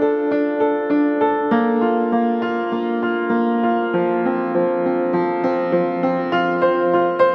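Background piano music: a gentle melody of evenly paced notes, about three a second.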